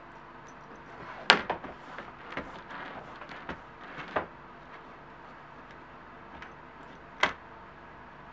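Metal belt buckle knocking and clinking against the work table as a leather belt is handled, with a sharp clack about a second in and another near the end, and softer rubbing of a cloth on the leather in between.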